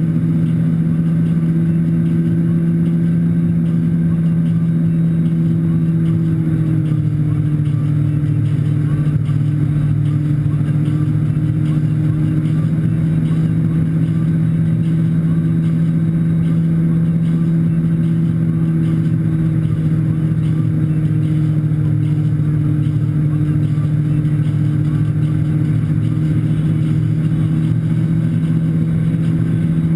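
Tow boat's engine running steadily at towing speed, a constant low drone over the rushing wash of its wake; the engine note drops slightly about seven seconds in.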